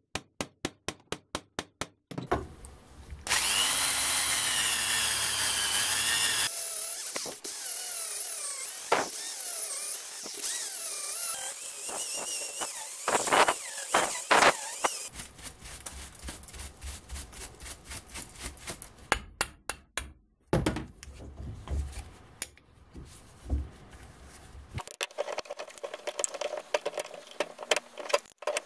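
Electric drill boring out the old wooden handle stub lodged in the eye of a steel axe head, running steadily with its pitch wavering under load for about twelve seconds. It is preceded by a quick run of light hammer taps on a punch, about five a second, and followed by intermittent knocks and scraping as the loosened wood is picked out.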